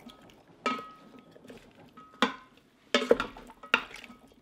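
Bamboo spatula stirring beef and vegetables in a stainless steel Instant Pot inner pot, knocking against the pot's side several times with a light metallic ring.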